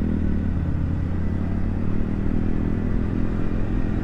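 Hero Splendor single-cylinder motorcycle engine running steadily at cruising speed, with wind and road noise from riding.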